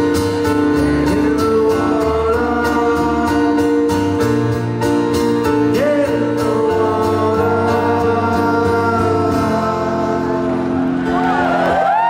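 Live male vocal singing over strummed guitar and sustained chords. Near the end, crowd whistles and cheers start as the song finishes.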